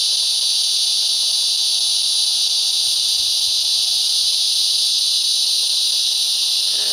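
Chorus of cicadas singing, a steady, unbroken high-pitched buzz that is really noisy.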